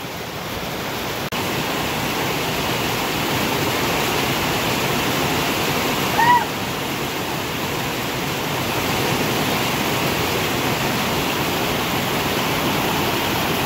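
Heavy rain from a thunderstorm pouring down in a steady hiss, a little louder after the first second or so, with a brief high call about six seconds in.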